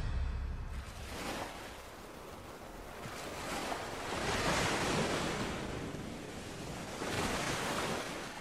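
Wind rushing over the microphone of a camera on a moving bicycle, swelling and easing in several gusts.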